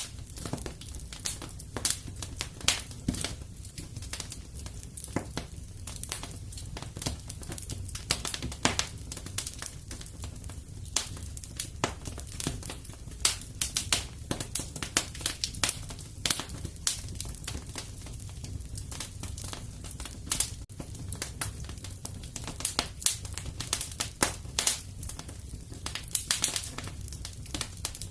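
Fireplace fire crackling, with irregular sharp pops and snaps, some clusters of quick ones, over a steady low rumble.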